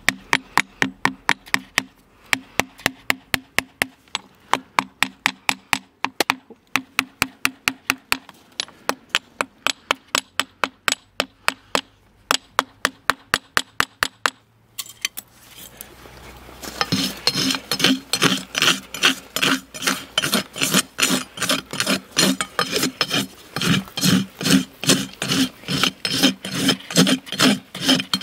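Farrier's hand tools working a horse's shod hoof: a quick, even run of sharp strokes, about four a second, for the first half. After a short pause, harsher rasping strokes of a farrier's rasp on the hoof wall, about three a second.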